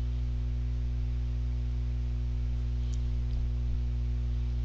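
Steady electrical mains hum in the recording, a low buzz with several overtones that holds at one level throughout.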